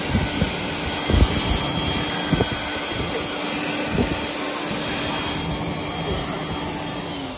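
Automatic hand dryer blowing air: a loud, steady rush that cuts off near the end.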